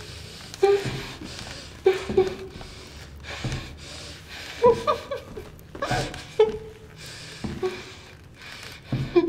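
A woman whimpering and gasping in short, frightened sobbing breaths, one every second or so.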